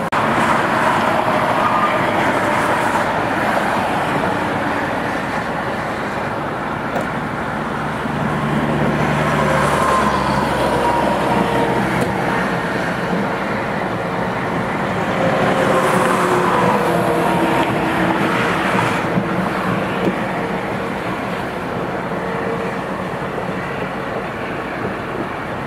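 Steady motor-vehicle road noise, a rushing hum with engine and tyre tones that slide slowly down in pitch a few times, as vehicles drive or pass.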